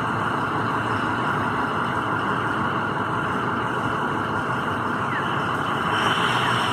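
A trolley-wire de-icing truck running steadily with its poles on the overhead wires: an even engine and machinery noise, growing a little louder near the end.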